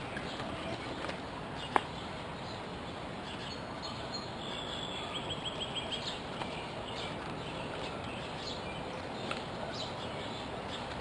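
Backyard songbirds chirping over steady background noise, with a fast trill of repeated high notes about four to six seconds in. A single sharp click sounds just under two seconds in.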